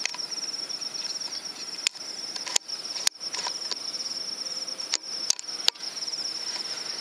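Insects trilling steadily in a high, fast-pulsing note, with several sharp clicks scattered through the middle and latter part.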